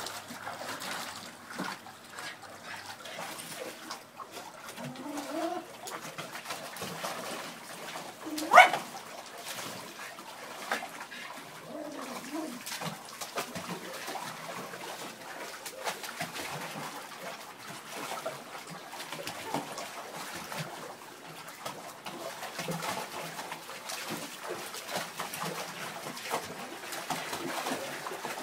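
Two dogs splashing and paddling in the water of a plastic kiddie pool, with a few short low whines and one sharp bark about eight and a half seconds in.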